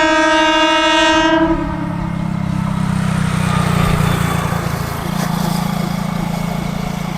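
MEMU electric train sounding its horn in one loud, steady blast that stops about a second and a half in, then a steady low hum as the train runs on.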